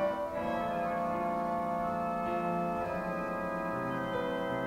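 Music of sustained, organ-like keyboard chords, each held for a second or two before shifting to the next.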